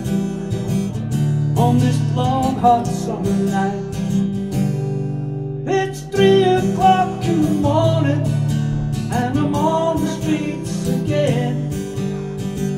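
A man singing along to a strummed acoustic guitar, live through a small PA. The singing breaks off briefly about five seconds in while the strumming carries on.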